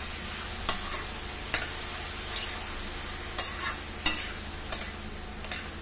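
Metal spatula scraping and knocking against a stainless steel kadai as sliced bottle gourd is stirred, a sharp stroke roughly every second, over a steady frying sizzle.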